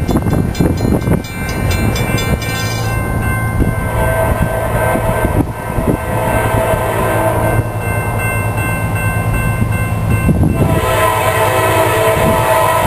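Approaching CSX diesel freight locomotives running, their horn sounding in long blasts from about four seconds in. Wind buffets the microphone at first.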